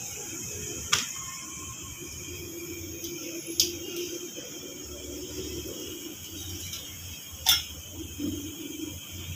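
Metal tongs clinking sharply against a tawa griddle three times while a roti is turned, over a steady low hum and hiss.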